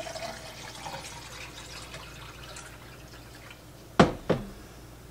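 Lemon water poured from a pitcher into a tumbler, a faint trickle over the first few seconds that fades out. About four seconds in come two sharp knocks in quick succession, a hard object set down.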